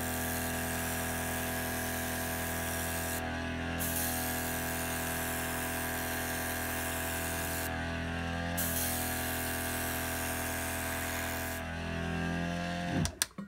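Airbrush spraying thinned acrylic paint in three long hisses with two short pauses, over the steady hum of a small airbrush compressor. The spray stops near the end and the compressor cuts off with a couple of clicks just before the end.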